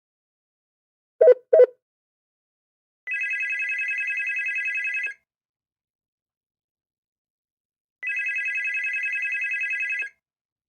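Electronic telephone ringer sounding two rings of about two seconds each, three seconds apart, each a rapid warbling trill. Shortly before the first ring come two short, louder low beeps.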